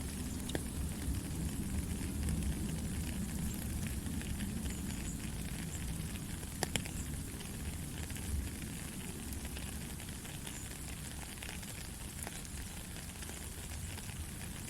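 Steady rain falling: an even hiss over a low rumble, with a few sharper ticks scattered through it, the clearest about seven seconds in.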